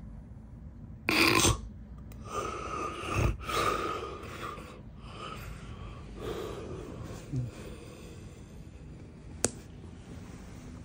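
A sleeping man snoring with loud, irregular snorts and gasping breaths, the strongest about a second in, followed by several more ragged breaths; a sharp click near the end.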